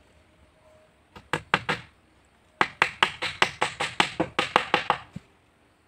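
Hand hammer striking the wooden planking of a boat hull: a few blows about a second in, then a quick, even run of light blows, about seven a second, for over two seconds.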